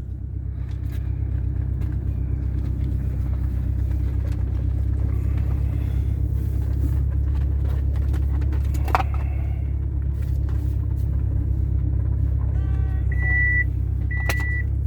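Car engine running steadily with a loud, rumbling exhaust; the owner says the muffler is real loud now. Near the end, a short high beep repeats about once a second.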